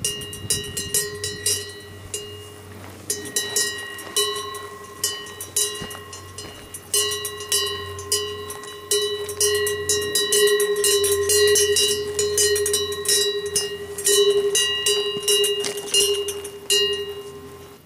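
Cowbell hanging on a grazing cow, clanking irregularly a few times a second as the animal crops grass and moves its head, each strike ringing on in the same metallic tone. The clanking grows denser and louder about halfway through.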